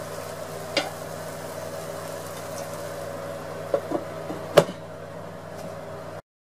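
A glass lid set onto a frying pan simmering on low heat: a light knock about four seconds in and a sharper clink about half a second later, over a steady low hum and soft sizzle from the pan. The sound cuts off suddenly near the end.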